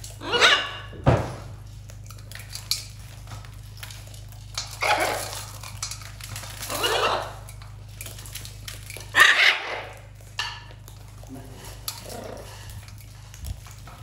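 Steel feeding pans clattering and seed rattling as parrots feed, broken by several short, loud animal calls.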